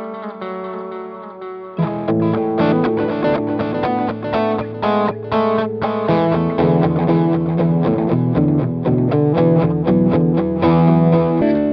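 Chibson Gold Top electric guitar played through an amp. A chord rings out, then about two seconds in a louder run of picked notes and chords begins. From about six seconds in, lower notes are added.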